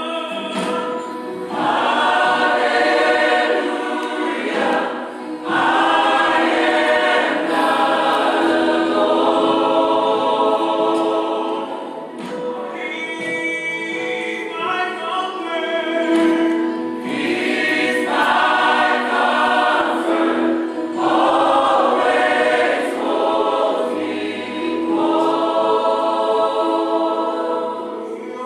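Samoan Assemblies of God church choir singing together, in sung phrases of a few seconds each that swell and ease.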